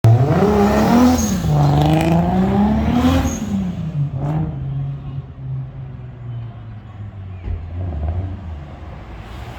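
A vehicle engine revs up and down twice, then settles into a steady, lower drone.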